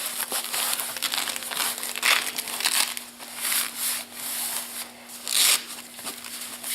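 Nylon parachute container and canopy fabric rustling and crinkling as the rig's flaps are handled and pressed closed, in irregular swishes with the sharpest one about five and a half seconds in.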